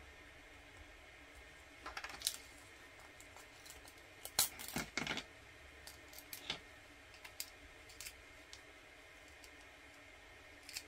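Small 3D-printed plastic pulley parts clicking and tapping against each other as they are handled and fitted together by hand, in scattered clicks with the loudest cluster near the middle.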